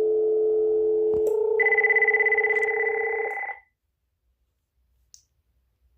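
Telephone dial tone for about a second, a click, then a cordless phone's electronic ringer trilling for about two seconds before falling silent: an incoming test call ringing on a Uniden TRU9488.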